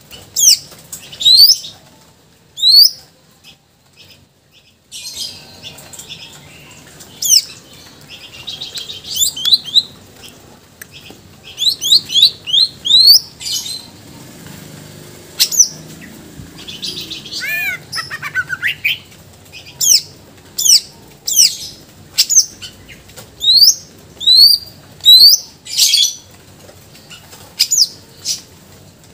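Green leafbird (cucak ijo) singing in full voice: quick, loud whistled notes sweeping up and down, with fast trills and a falling run of notes, broken by a short pause early on. The song is a string of phrases mimicked from other birds.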